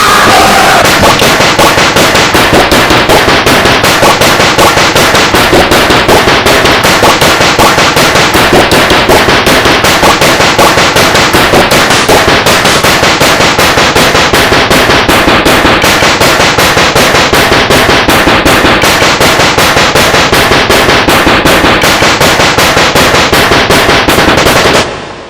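Very loud, edited and heavily distorted sound sample looped rapidly, about four hits a second in an even rhythm, then fading out in the last half second.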